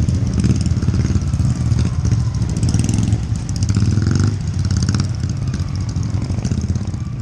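Small motorcycle engine running steadily while riding, with a rush of wind noise on the microphone.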